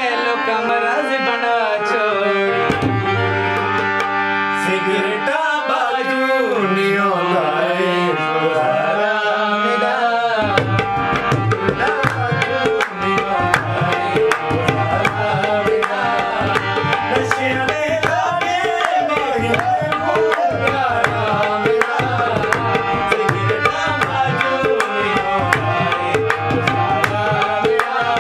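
Instrumental music: a harmonium plays a melody alone for about the first ten seconds, then tabla drums join with quick, steady strokes under it.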